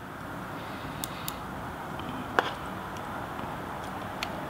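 A few light clicks and taps as a small folding knife and its parts are handled during reassembly, the sharpest about halfway through, over a steady low hiss.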